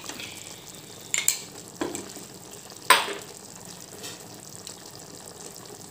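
Mushroom gravy with ground masala paste sizzling and bubbling in oil in a pan, a steady frying hiss. A spatula knocks against the pan a few times, the loudest stroke about three seconds in.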